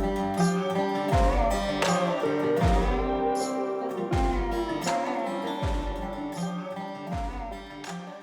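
Background music with guitar and a steady beat, fading out near the end.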